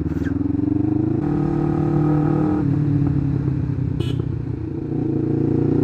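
Kawasaki GPZ500S parallel-twin engine running under way, heard from a helmet camera. The engine note steps up just over a second in, drops about two and a half seconds in, and climbs again near the end, with a brief click about four seconds in.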